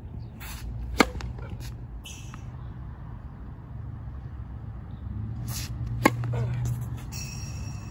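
Tennis racket striking the ball on two serves, about five seconds apart, each a sharp pop, with a few fainter taps between, over a steady low outdoor rumble.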